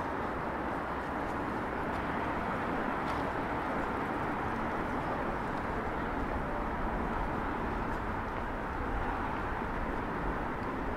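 Steady city street ambience: a continuous wash of road traffic with no distinct events standing out.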